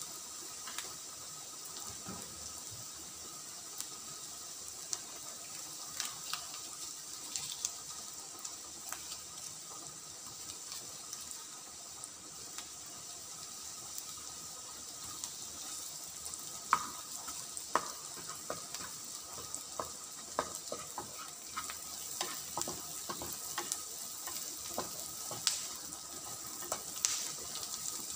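Chopped onion and garlic sizzling steadily in hot oil in a frying pan, with scattered light clicks of a utensil against the pan, more frequent in the second half.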